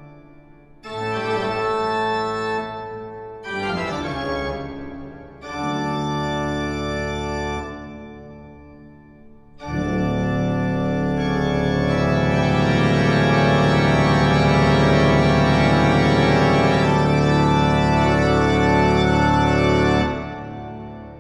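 Background organ music: a few held chords, then one long, louder chord from about ten seconds in that stops shortly before the end.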